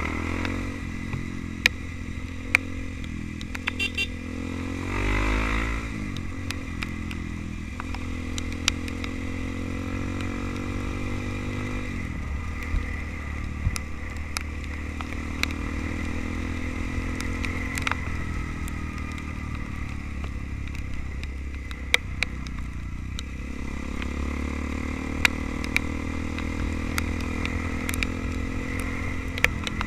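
Trail motorcycle engine running while being ridden, its pitch rising and falling several times as the throttle is worked. Scattered sharp clicks and knocks come through over it.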